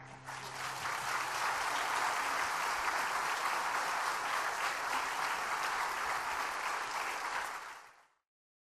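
Audience applauding after a song, swelling over the first second, holding steady, then fading to silence about eight seconds in.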